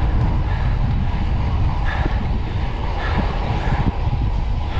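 Steady wind rumble and road noise heard while riding a road bike on the road, loud and continuous, heaviest in the low end.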